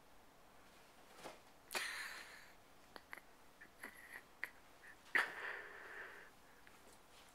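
Two puppies play-wrestling on a dog bed: two short breathy snorts, about two and five seconds in, with light clicks and scuffling between them.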